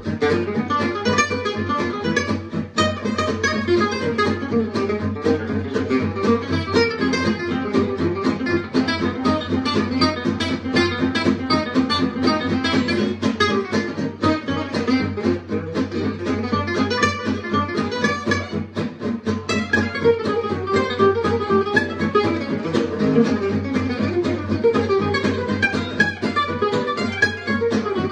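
Two gypsy jazz acoustic guitars playing together, one of them a Selmer-Maccaferri-style oval-hole guitar, with fast plucked runs over strummed chords.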